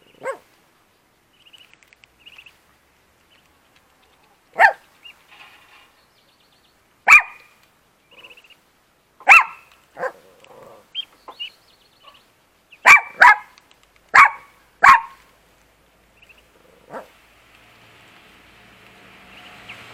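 A dog barking off and on: about ten short, sharp barks, some single and some in quick pairs, a second or two apart.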